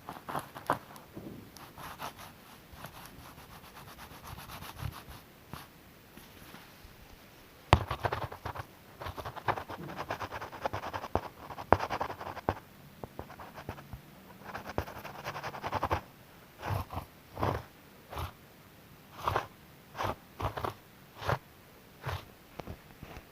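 Hand sanding on a car body panel, rough abrasive rubbing and scraping strokes as body filler is worked flat. The strokes come thick for a while and then fall into a slower rhythm of about one stroke a second near the end.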